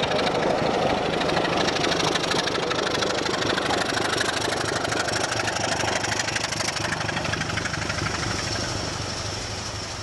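BR Class 25 diesel locomotive's Sulzer six-cylinder engine running steadily with an even beat as the loco passes and draws away, fading gradually over the last few seconds.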